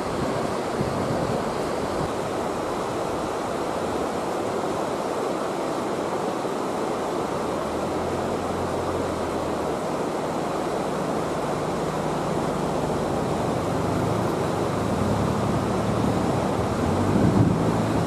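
Steady rush of river water churning over a weir. Low rumbles of wind on the microphone come and go around the middle and near the end.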